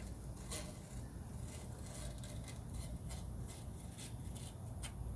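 Hand work on a screen panel with spline: a string of short scraping clicks, roughly two a second and uneven, over a low steady rumble.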